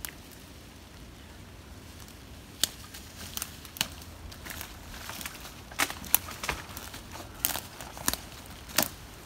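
Footsteps through fallen dry leaves as a long dead branch is lifted and dragged, with irregular sharp crackles and snaps starting a few seconds in.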